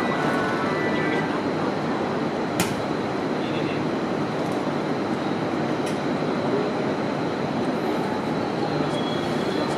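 E721-1000 series electric train standing at the platform, its onboard equipment giving a steady hum with a faint, thin high whine, and a sharp click about two and a half seconds in.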